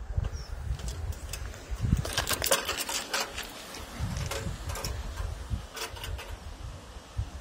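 Wind buffeting the microphone in uneven gusts, with a cluster of sharp clicks and scratchy rattles about two seconds in and another click near six seconds.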